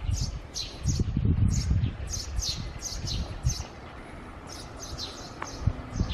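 Small songbirds chirping: a quick series of short, high, falling chirps, two or three a second, thinning out past the middle.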